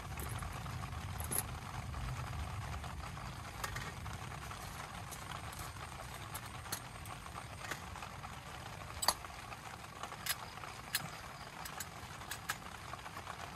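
Steady rain hiss with scattered light clicks and taps, about eight of them at irregular intervals.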